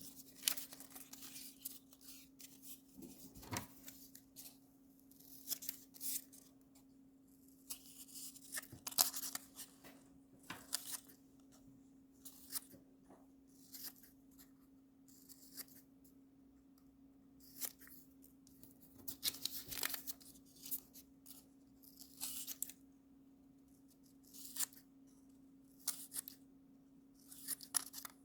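Scissors cutting paper worksheet pieces: irregular crisp snips and paper rustles in short bouts with pauses between, over a faint steady hum.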